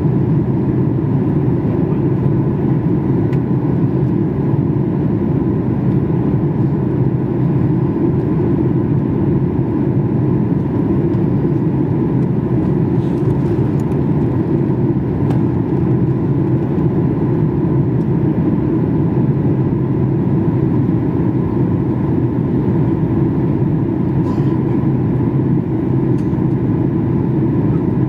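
Steady cabin noise inside a Boeing 737 MAX 8 airliner in flight on its descent: the CFM LEAP-1B engines and the airflow past the fuselage make an even, low rumbling noise.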